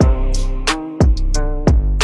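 Background music with a steady beat and deep, sustained bass under each hit.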